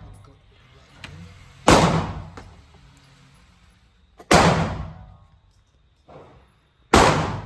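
Three pistol shots fired one at a time, about two and a half seconds apart, each cracking loud and ringing off the walls of an indoor range. A fainter knock comes just before the last shot.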